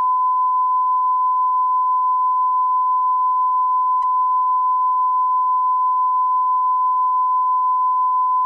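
Censor bleep: one continuous, steady beep tone at a single pitch, laid over the soundtrack to mask remarks deemed inappropriate.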